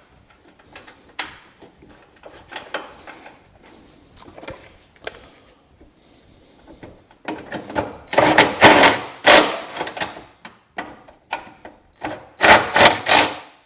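A cordless electric impact wrench with a 10 mm socket runs down and hammers tight the two nuts holding a hood ajar switch, in two loud rattling bursts: one about seven seconds in, lasting a few seconds, and a shorter one near the end. Before them come light clicks of the nuts being threaded by hand.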